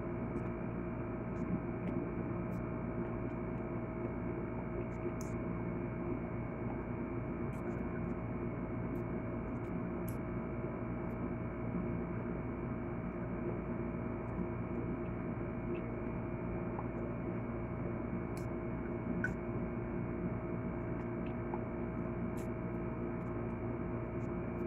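A steady hum made of several unchanging tones, with faint, scattered small clicks over it.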